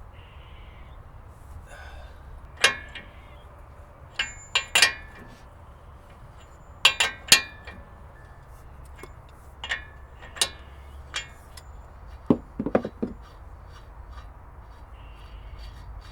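Scattered sharp, ringing metallic clinks of a steel socket, wrench and parts, with a few duller knocks about three quarters of the way in, as the 36 mm spindle nut is worked off a 2008 F-150's front hub.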